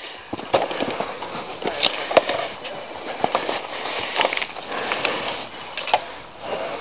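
Irregular clattering, with sharp knocks and clicks at uneven intervals over a rough noisy rustle.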